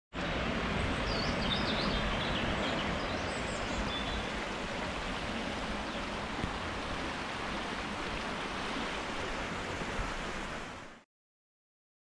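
Shallow stream burbling steadily over stones, with a few faint bird chirps early on. It fades out to silence near the end.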